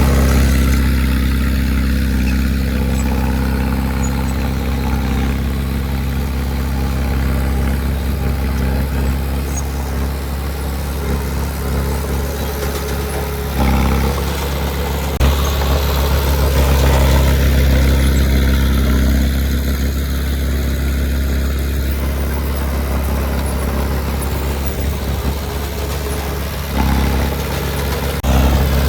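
Heavy diesel engine of earthmoving equipment running steadily at a low, even note. Its note shifts a few times, and there is a single sharp knock about fifteen seconds in.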